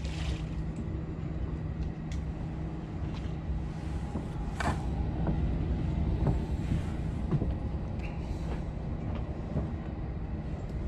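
A steady low mechanical hum of a running motor, with a constant pitched drone and a few short clicks.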